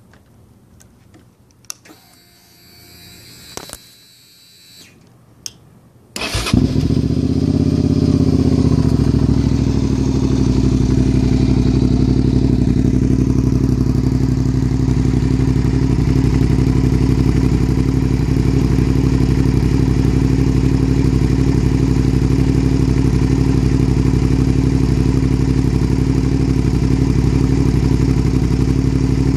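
2003 Suzuki SV650's 90-degree V-twin engine, breathing through a Delkevic slip-on exhaust, starting up about six seconds in after a few clicks and a faint whir, then settling into a steady idle.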